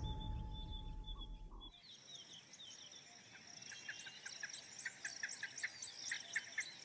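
Natal spurfowl (Natal francolin) calling: a rapid series of short, sharp, high notes repeated several times a second, starting about two seconds in. Before the calls begin there is a low rumble.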